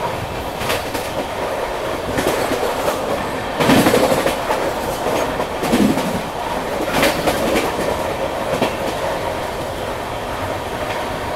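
Passenger train running at speed, heard from beside the coach through the open side: a steady rush of wind and rail noise with wheels clacking over rail joints. There is a louder clatter about four seconds in.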